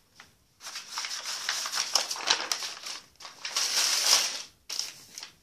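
Irregular rustling and rubbing in three stretches, broken by short pauses about three and four and a half seconds in.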